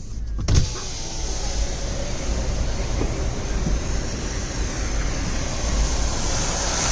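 Steady rain and road noise heard from inside a car, starting with a thump about half a second in.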